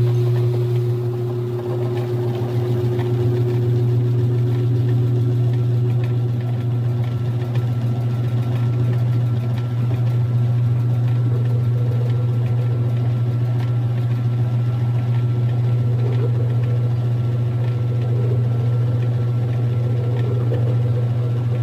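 Whirlpool washing machine running on its spin cycle with a loud, steady low hum.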